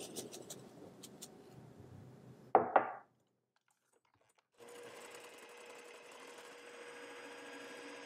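Electric hand mixer whipping egg whites and sugar into meringue in a glass bowl, its motor running with a steady hum. Two sharp knocks sound about two and a half seconds in, then a short dead silence before the mixer runs steadily again.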